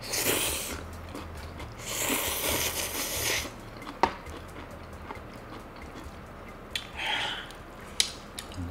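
Ramyeon noodles being slurped in two long noisy draws near the start and a shorter one about seven seconds in, with sharp clicks of tableware about four seconds in and again near the end.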